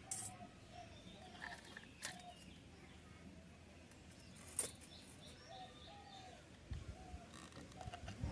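Faint background bird chirps, with a few sharp clicks and a low thud as small wooden and metal model parts are handled.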